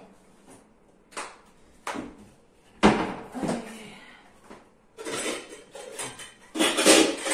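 Kitchen dishes and utensils being handled and set down: a few separate knocks about one, two and three seconds in, the third the loudest, then busier clattering over the last couple of seconds.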